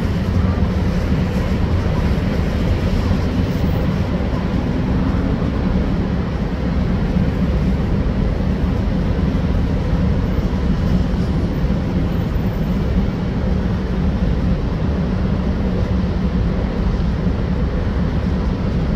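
Diesel engine of an SRT THN-class railcar running steadily as the train creeps in at walking pace: a constant low drone with no change in pitch.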